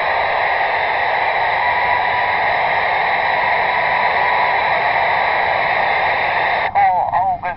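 Steady hiss of static from a CB radio's speaker, switching on sharply as the transmit button is released. Near the end a voice comes through the radio.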